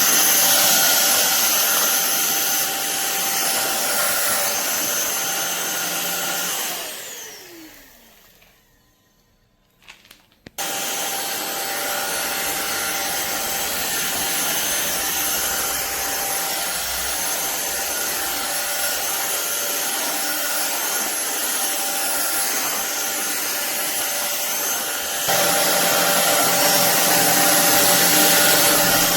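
Cordless stick vacuum cleaner motor running with a steady whine. About seven seconds in it is switched off and winds down with a falling whine to near silence, a few clicks follow, and about ten and a half seconds in it starts again abruptly. It steps up louder about four seconds before the end.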